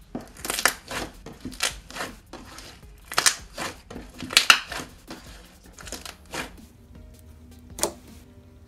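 Hands kneading and pressing a clear glue slime packed with black and silver holographic glitter, making a run of short crackly squelches. They come thick and fast for the first five seconds or so, then more sparsely, with one sharp pop near the end.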